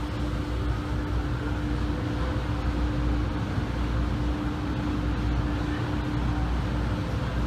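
Automatic car wash jets spraying water over a vehicle: a steady hiss of water with a low rumble and a constant machine hum, muffled by the vehicle's glass.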